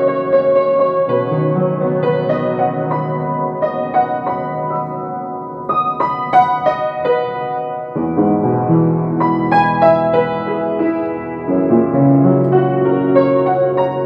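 Slow instrumental piano music, held chords changing about once a second.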